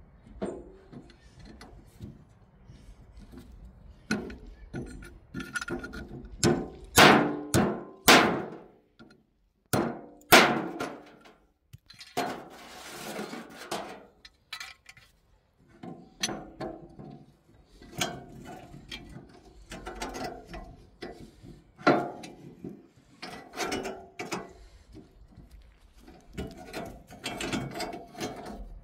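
Irregular metal clinks and knocks from a scythe being repaired: the blade, its metal fixing ring and the wooden snath are handled and tapped together. A few louder knocks come about a third of the way in, and a short scrape near the middle.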